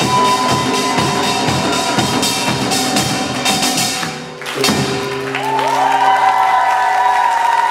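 Samulnori percussion ensemble of kkwaenggwari small gongs, janggu hourglass drums, buk barrel drums and jing gong playing a fast, driving rhythm. The rhythm breaks off about four seconds in, then one final stroke leaves the gongs ringing in a sustained, steady tone.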